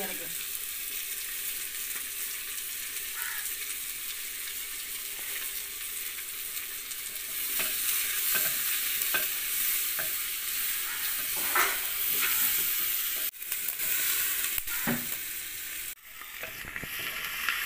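Sliced onions and green chillies sizzling in hot oil in a clay pot, with a wooden spoon scraping and stirring them at intervals.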